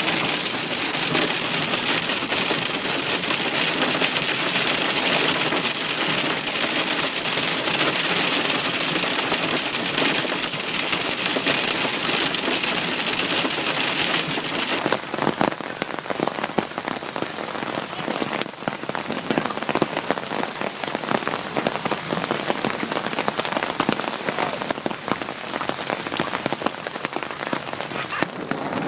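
Hail falling hard and clattering on surfaces, a dense steady hiss of many small impacts. About halfway through it changes abruptly to a sparser patter of separate, sharper hits.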